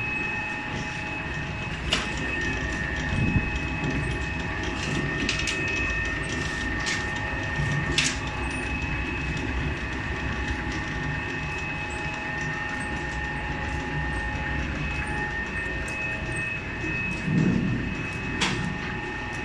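Fresh noodle making machine running: its motor and dough-sheet rollers give a steady hum and rumble with a constant high whine, and a few sharp clicks now and then.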